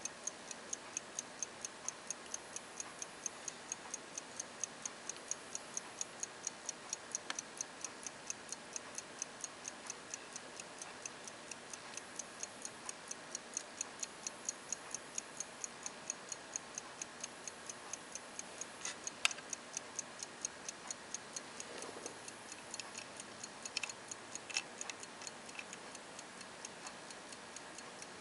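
Antique fusee pocket watch ticking steadily, several quick even ticks a second. A few louder clicks come in about two-thirds of the way through.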